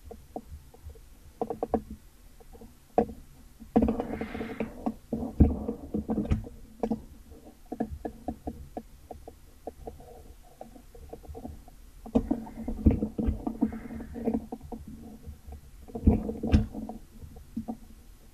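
Irregular clicks and soft knocks from handling at a computer desk, bunched in clusters about four, twelve and sixteen seconds in.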